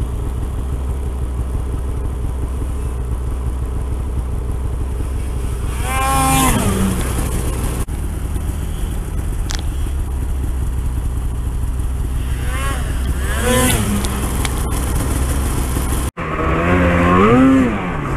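Arctic Cat snowmobile's 800 two-stroke engine running steadily while riding a trail. Twice, about six seconds in and again near fourteen seconds, the pitch rises and falls as the throttle is opened and eased. The sound drops out briefly near the end.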